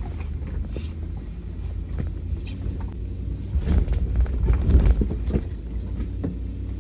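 Off-road vehicle on a rough trail: a low, steady rumble with scattered knocks and rattles, loudest about four to five seconds in.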